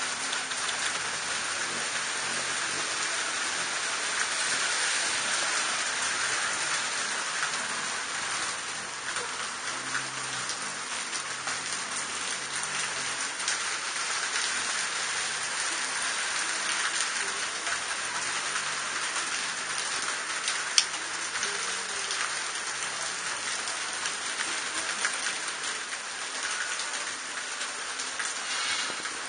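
Heavy rain pouring steadily onto pavement and awnings, a dense, even hiss. A single sharp click stands out about two-thirds of the way through.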